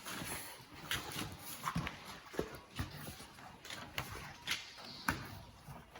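Chickens clucking: short, separate calls at irregular intervals.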